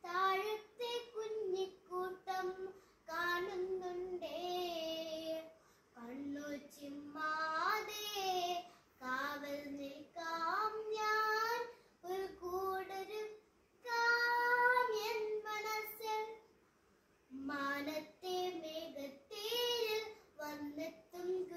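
A young girl singing solo without accompaniment, in short phrases with breaths between, pausing for about a second late on.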